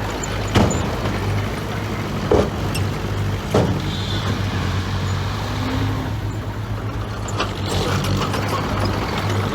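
Diesel engine of heavy earthmoving machinery running steadily, with three sharp knocks in the first four seconds.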